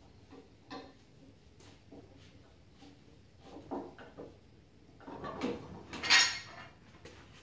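Stacked hex dumbbells, a 45 lb and a 20 lb joined by a connector in each hand, clinking metal on metal as they are gripped and lifted off a wooden rack. A few light clicks come first, then a louder clatter about five to six seconds in as they come off the rack.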